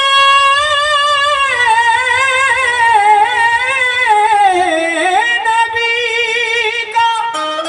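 Qawwali vocalist holding a long, wordless melismatic phrase with vibrato that sinks lower about five seconds in, over harmonium accompaniment.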